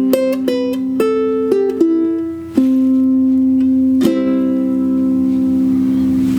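Ukulele playing the song's closing bars: a short run of plucked single notes, then two strummed chords, the last one left ringing until it is muted.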